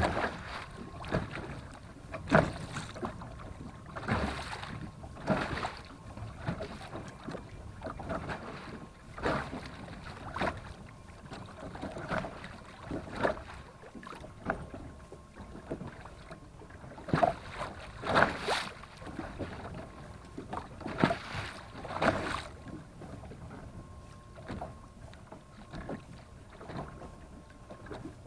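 Water slapping and splashing against the hull of a small fishing boat trolling slowly, in irregular strokes every second or two over a steady low background noise.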